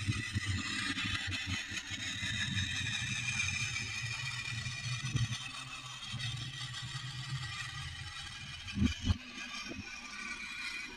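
Battery-powered TOMY FlipBot toy robot running: its small motor and plastic gearbox whir steadily, the cracked gears repaired, with a few plastic clacks late on as the robot tips over onto the bench in its flip.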